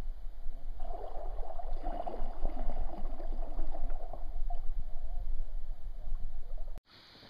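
Water gurgling and trickling around a kayak as it moves over calm creek water, over a low steady rumble. The sound cuts off suddenly near the end.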